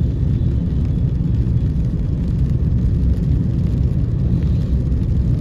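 Steady low rumble of a vehicle on the move, with no breaks or sudden events.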